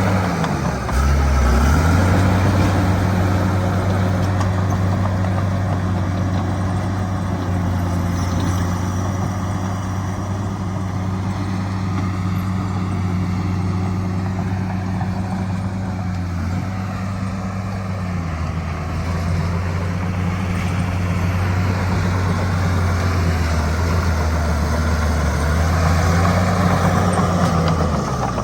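Bulldozer's diesel engine running steadily at working speed, its pitch dipping briefly and recovering about a second in and again near the end.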